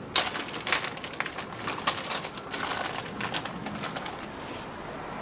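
Plastic zip-top bag crinkling and crackling in irregular bursts as it is handled and opened.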